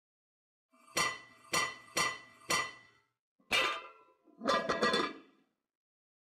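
Intro logo sound effects: four sharp, ringing metallic clinks about half a second apart, then a single hit and a final quick cluster of clattering hits.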